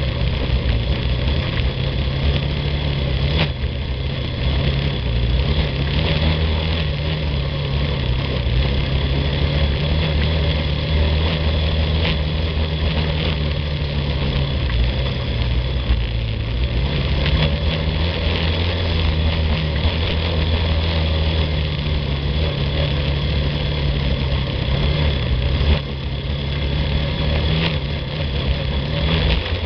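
Yamaha ATV engine running steadily at low speed on a dirt track, its pitch rising and falling a little with the throttle, with a few sharp knocks along the way.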